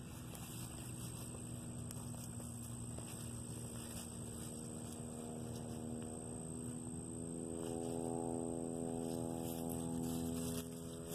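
A steady droning hum of constant pitch, growing louder about halfway through. Under it are faint light ticks and rustles of dry leaves as a nine-banded armadillo roots through the leaf litter with its snout.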